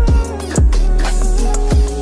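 Background music: an electronic/R&B-style track with deep bass, a regular beat and a gliding melody line.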